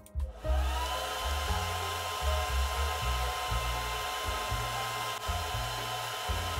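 Extractor fan switching on: its motor whine rises in pitch over about the first second, then it runs steadily with a hiss of moving air. Background music with a bass beat plays underneath.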